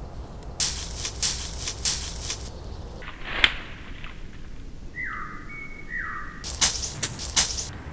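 Rustling and crunching in dry brush and leaves, in several bursts. About three and a half seconds in comes a sharp crack, and just after the middle there are two short whistle-like calls.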